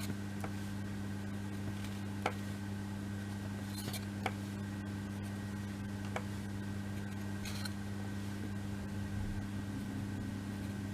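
A steady low electrical hum, with a few faint light clicks and two brief soft hisses as small laser-cut kit pieces are handled and glued on a work surface.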